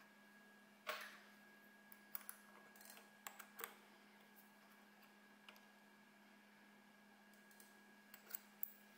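Scattered light metallic clicks and taps of a small part being seated by hand in a three-jaw lathe chuck, the loudest about a second in and a few more near the end, over a faint steady hum.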